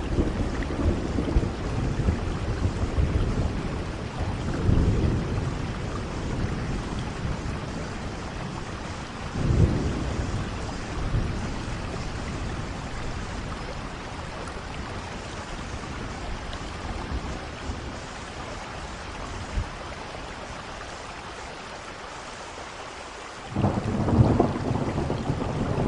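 Steady rainfall with low rolling thunder that swells and fades several times. A louder rumble starts abruptly near the end.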